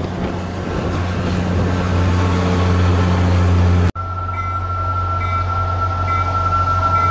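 MBTA commuter rail diesel locomotive approaching, its engine a steady low drone that grows louder, cut off suddenly about four seconds in. After that a steady high-pitched whine runs over a low rumble as another train approaches from the distance.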